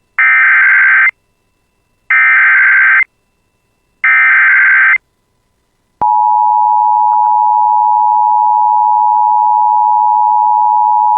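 Emergency Alert System alert opening: three one-second bursts of the SAME digital header's warbling data tones, about a second apart, encoding a severe thunderstorm warning. About six seconds in, the loud steady EAS attention tone starts.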